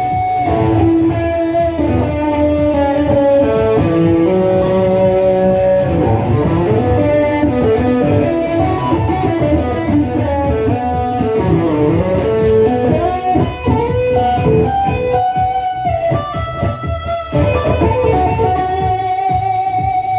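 A band playing: an electric guitar carrying a melody over bass and a steady beat.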